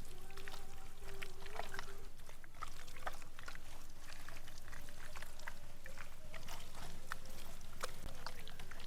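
Hands rubbing wet masala paste into a whole raw chicken: a run of small wet squishing and clicking sounds, scattered and irregular, over a faint steady hum.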